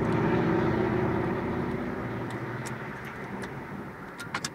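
A motor vehicle's engine drone, gradually fading away, with a few faint clicks in the second half.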